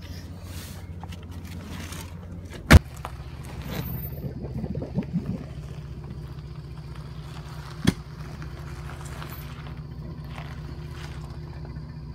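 Vehicle engine idling as a steady low hum, with a loud sharp knock about three seconds in and a smaller one about eight seconds in. A faint steady high whine joins from about four seconds on.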